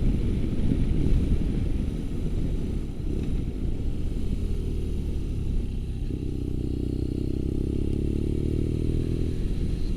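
BMW R nineT's boxer twin engine pulling steadily under the rider, heard over wind and road rumble; its engine note comes through clearly and evenly from about four seconds in.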